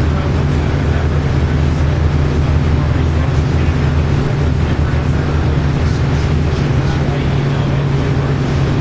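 Cummins ISL9 inline-six diesel of a New Flyer XD40 transit bus running steadily as the bus drives along at speed, heard from inside the passenger cabin with a constant low engine drone and road noise.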